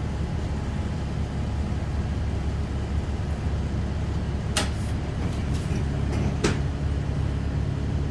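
City bus engine running with a steady low hum, heard inside the cabin, with two sharp clacks about four and a half and six and a half seconds in.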